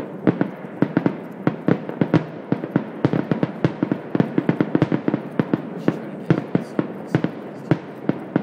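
Fireworks grand finale: aerial shells bursting in rapid, dense succession, several sharp bangs a second over a continuous rumble.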